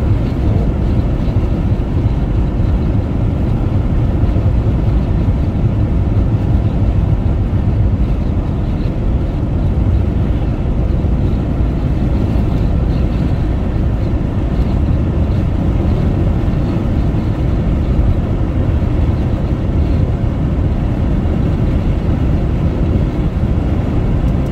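Car driving at highway speed: a steady, low road noise of tyres, engine and air, with no sudden events.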